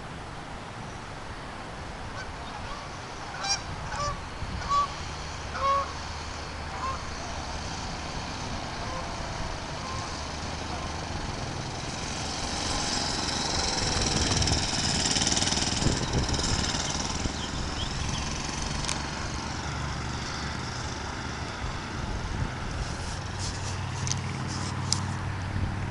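A mini bike's small engine running as it approaches and passes, loudest about thirteen to sixteen seconds in, with the pitch falling as it goes by. A few short honks sound about four to six seconds in.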